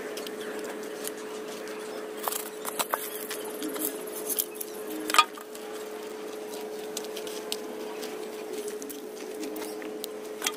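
Hands pressing and patting a carbonized rice hull and garden soil potting mix around a tree trunk in a metal basin: soft rustling with scattered sharp taps and scrapes, the loudest about five seconds in. A steady hum runs underneath.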